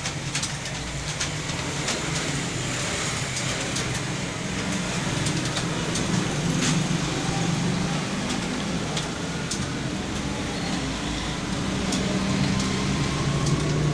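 Many computer keyboards clattering at once as a roomful of students type, a dense stream of irregular key clicks over a steady low hum.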